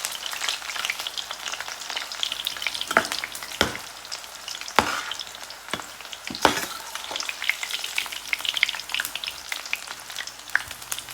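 Slices of elephant ear leaf patra deep-frying in hot oil, crackling and sizzling steadily. A few sharper knocks stand out from about three to six and a half seconds in.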